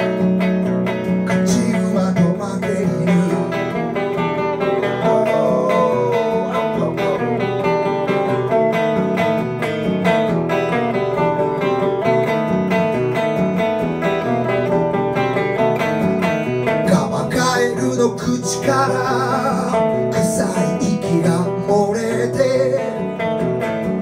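Live music on an amplified hollow-body electric guitar, strummed and picked without a break.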